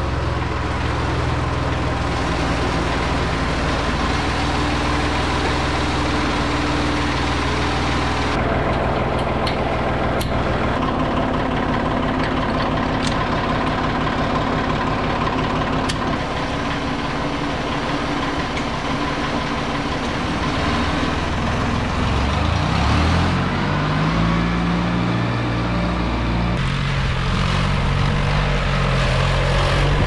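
A motor vehicle's engine running steadily, its pitch rising as it speeds up about three-quarters of the way through. The sound changes abruptly about eight seconds in and again near the end.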